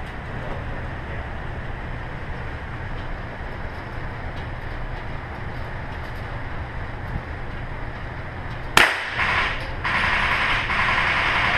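Steady low background hum, then a single loud handgun shot about nine seconds in, followed by a shorter burst of noise and about two seconds of continuous loud noise near the end.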